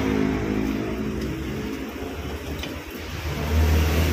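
A vehicle engine running, a low steady hum that grows louder about three and a half seconds in.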